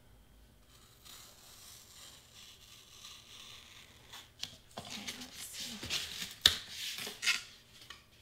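Craft knife slicing through a sheet of black board along a traced outline. It is faint at first, then from about halfway a string of rasping cutting strokes, with one sharp click that is the loudest sound.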